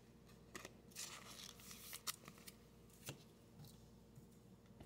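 Near silence, with a few faint clicks and light rustles of trading cards being handled and set down.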